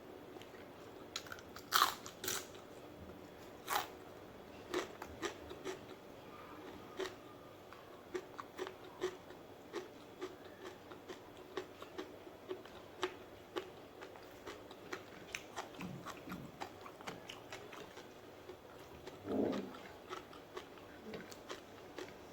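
Close-up eating sounds of crunchy food being bitten and chewed: a few loud crunches about two seconds in, then steady chewing clicks about two a second, with another louder crunch near the end.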